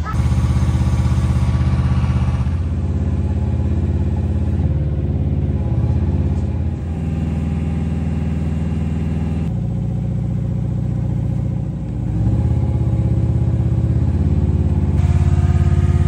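Engine of a tracked spider crane running under load as it hoists a stone stair tread. Its pitch and level shift several times as the lift goes on.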